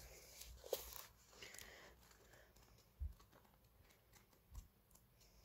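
Near silence with faint light clicks and rustles of handling, and two soft low thumps, about three seconds in and again shortly before the end.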